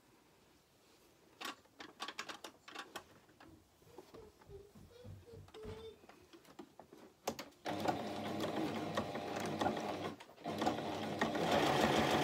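A run of clicks and small handling sounds, then an electric Toyota sewing machine stitching steadily from a little under eight seconds in. It stops briefly and starts again, louder, near the end.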